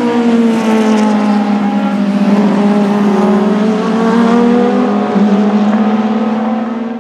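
Several racing car engines running at once, among them the Porsche 935 K3's twin-turbo flat-six, as the cars pull away through a chicane. It is a steady drone of overlapping engine notes, a few of them slowly sliding up and down.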